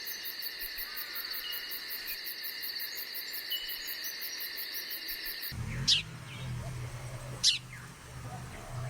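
An insect chorus trills steadily with a rapid high pulsing. About five and a half seconds in, the sound changes abruptly to a low rumble, over which a diamond firetail gives two short, sharp falling whistles about a second and a half apart.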